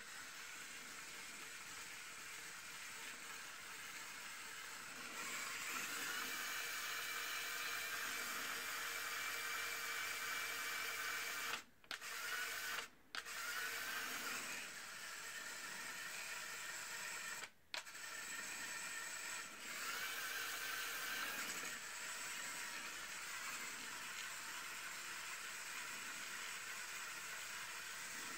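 Small electric motor of a home-built Lego minigun whirring as it drives the spinning barrel through plastic gears. The whir grows louder about five seconds in, stops abruptly three times for a moment in the middle, and softens again near the end.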